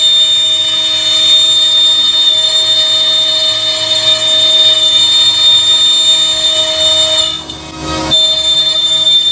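CNC router spindle cutting 3/4-inch particle board at 100 inches per minute: a loud, steady, high-pitched whine made of several held pitches. It drops briefly for under a second about seven seconds in, then resumes.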